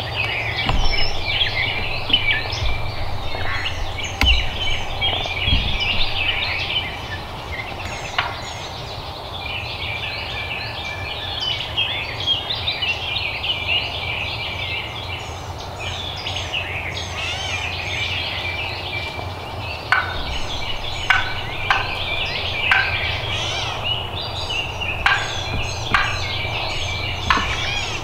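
Wild turkey gobbling with songbirds calling. Several short, sharp notes come irregularly in the last eight seconds or so.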